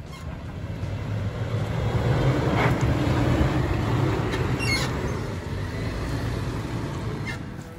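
Lifted Toyota 4Runner's V6 engine running at low revs as it crawls over rutted dirt and drives past. It grows louder over the first couple of seconds, then eases off toward the end.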